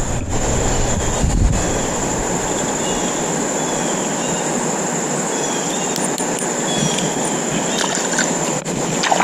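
Steady rushing of river water, with wind rumbling on the microphone for about the first second and a half. A thin high tone runs throughout, and a few faint short chirps come in the middle.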